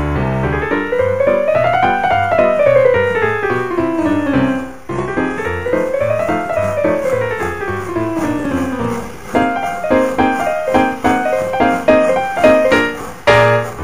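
Piano music: two long runs of notes climbing and then falling back, then repeated short chords.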